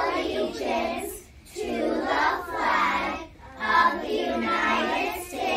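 A class of young children reciting the Pledge of Allegiance in unison, in phrases broken by short pauses.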